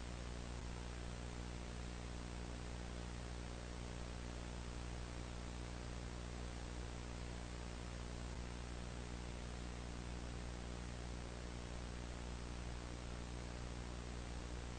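Steady electrical hum with a constant hiss over it and nothing else: dead air on the broadcast signal.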